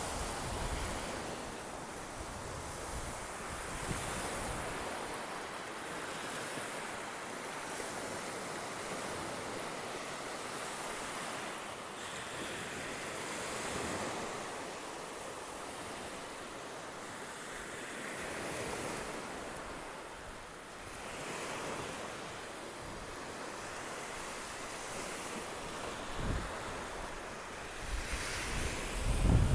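Sea surf washing on a beach: a steady hiss of breaking waves that swells and eases every few seconds. Wind buffets the microphone near the end.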